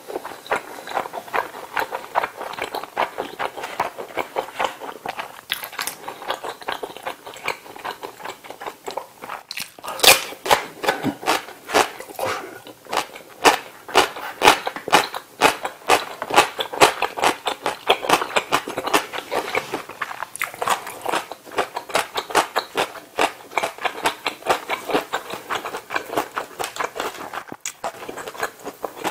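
Close-miked chewing and crunching of tteokbokki and fried chicken: a fast, continuous run of wet mouth clicks that grows sharper and louder from about ten seconds in.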